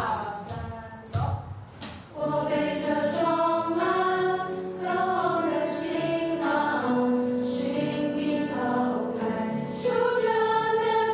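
Choral singing over music: several voices holding long, slow notes that change together about once a second.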